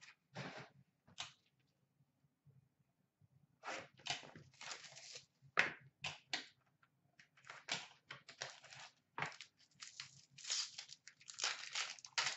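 Foil trading-card packs being handled, torn open and crinkled by hand, in irregular bursts of rustling and tearing. Two brief rustles at the start, then a lull of a couple of seconds, then busier crinkling and tearing through the rest.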